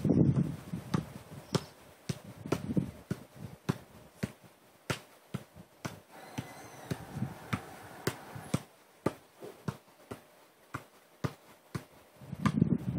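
Football being juggled: short dull taps as the ball bounces regularly off the feet and thighs, about two touches a second. Low rumbling noise rises near the start and again near the end.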